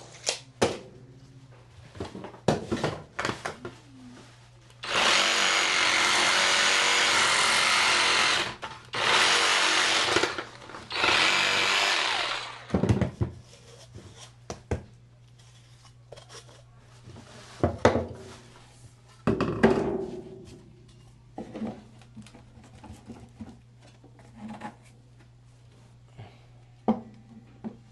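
Power tool running in three bursts of a few seconds each, the first the longest, among scattered knocks and clatter of tools being handled.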